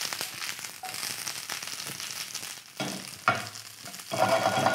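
Squash shoots sizzling in a hot frying pan as they are tossed in the pan. About three seconds in and again near the end there are louder scrapes as the pan is set back down and slid on the gas stove's cast-iron grate.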